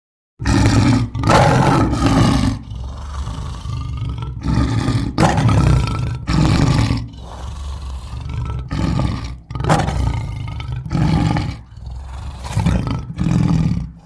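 Custom creature roar sound effect layered from animal recordings: a string of about a dozen loud growling roars, each under a second, starting about half a second in after a silence.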